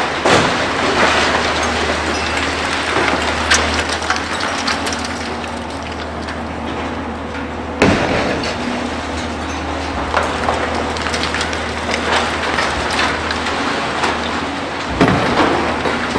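Demolition of a concrete high-rise: continuous clattering and crunching of falling concrete rubble over the steady low hum of heavy diesel machinery, with a sharp crack about 8 seconds in and another heavy knock near the end.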